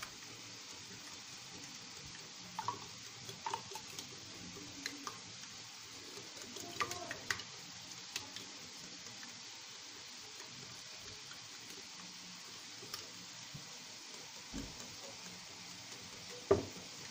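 Eggs being beaten by hand in a ceramic bowl, the utensil clicking and tapping against the bowl in a scatter of short strokes, with one louder knock near the end. Underneath, a faint steady sizzle of zucchini and vegetables frying in a pan on the gas stove.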